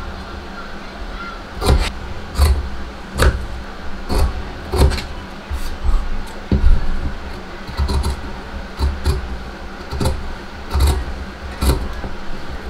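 Scissors snipping through cloth with fused interfacing, a dozen or so short cuts at roughly one a second as a welt piece is cut out along marked lines.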